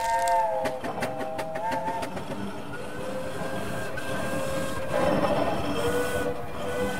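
Steam train: a locomotive whistle sounds several tones at once for about two seconds, over the rumble and clatter of the train running on the rails.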